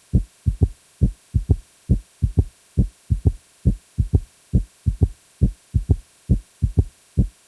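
Heart sounds with a third heart sound (S3 gallop), in a repeating 'Ken-TUC-ky' rhythm: S1, then S2 followed closely by S3. It comes as one low thump and then a close pair, about once every 0.9 seconds. The S3 in early diastole comes from rapid filling of the ventricles.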